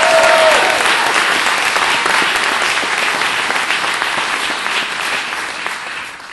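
A large audience applauding, with a shout rising over the clapping at the very start; the applause slowly dies away toward the end.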